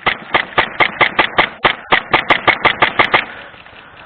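Airsoft gun firing a rapid string of shots, about six or seven a second, for about three seconds, then stopping.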